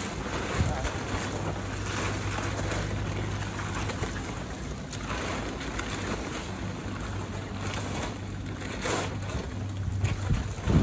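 Gusty wind buffeting the microphone while a large plastic tarp rustles and crackles as it is folded and flaps, over a steady low hum.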